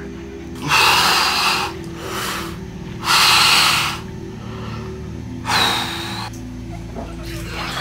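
A man's loud, sharp gasping breaths in a cold-water plunge bath, three of them, the first two about a second long, the cold-shock breathing of getting into cold water. Background music plays throughout.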